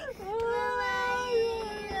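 A person crying: one long, high wail held at a steady pitch.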